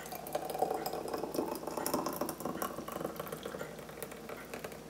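Thick lemon curd pouring from a metal bowl into a ceramic jug: an irregular wet pouring sound that fades out about four seconds in.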